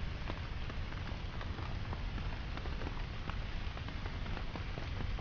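Steady rain, an even hiss with many scattered individual drops ticking, over a deep low rumble.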